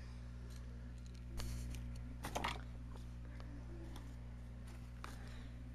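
Steady low hum, with a brief faint rustle about a second and a half in and a short scraping click just after, typical of small objects being handled.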